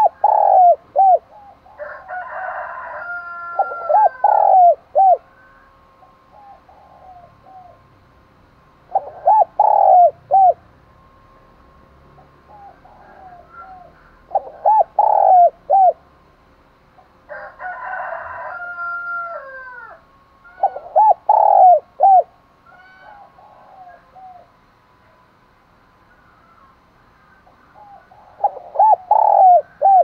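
Spotted dove giving its calling coo: phrases of three or four short, low coos repeated about every five or six seconds.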